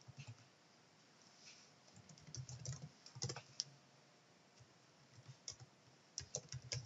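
Faint keystrokes on a computer keyboard: scattered taps, in small bursts about two seconds in and again near the end, as a short line of code is typed and run.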